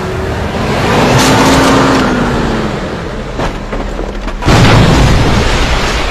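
Film sound of a car engine revving, then, about four and a half seconds in, a sudden loud explosion as the car blows up on the water.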